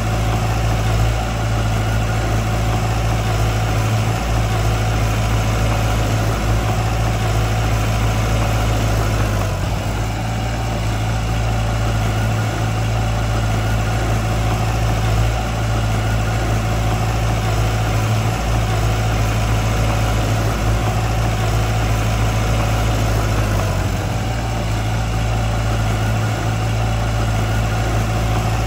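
Diesel engine of heavy earthmoving machinery running steadily at an even pitch, with a couple of brief slight dips in level.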